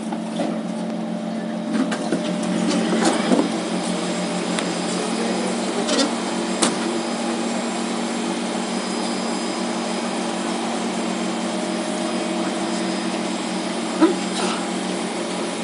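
Singapore MRT train in motion, heard from inside the carriage: a steady drone of the traction motors and running gear, with several steady tones, which the uploader calls a bad motor sound. A few short knocks from the carriage come about 2, 3, 6 and 14 seconds in.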